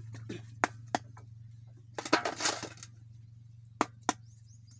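Coconut-shell moulds being knocked to release set palm jaggery (karupatti) cakes: two pairs of sharp knocks, with a louder clattering burst about two seconds in.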